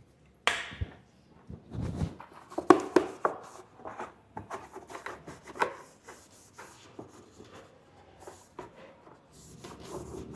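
Irregular rubbing and scraping with scattered light knocks: the motorcycle's plastic airbox being wiped clean by hand before the air filter goes in.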